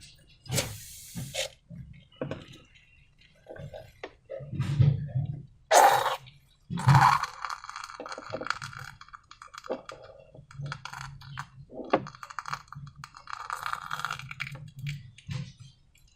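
Hands working slime and transparent balloons: irregular sticky crackling and squishing with scattered sharp clicks and taps, the loudest about six and seven seconds in.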